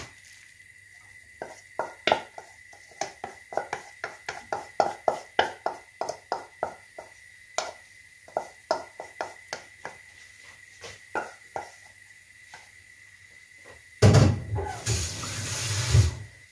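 A utensil tapping and scraping against a bowl, sharp clicks two or three a second, as minced meat is knocked out of it into a frying pan. Near the end a loud knock, then a burst of hissing for about two seconds.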